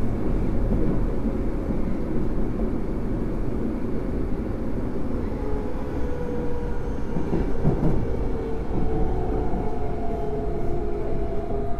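Osaka Metro 23 series subway train running, heard from on board: a steady low rumble of wheels and track. Whining motor tones come in about halfway through.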